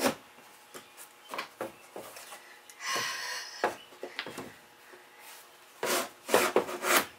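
Floating vinyl plank scraping and knocking as it is pushed and worked by hand under a wall edge. A few light clicks, a short scrape about three seconds in, then a cluster of louder scrapes and knocks near the end.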